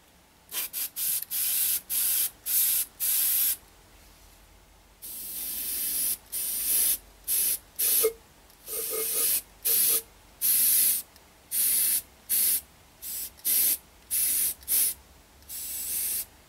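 Gravity-feed airbrush spraying paint in about twenty short hissing bursts as the trigger is pressed and released, with one longer hiss of about a second and a half starting about five seconds in.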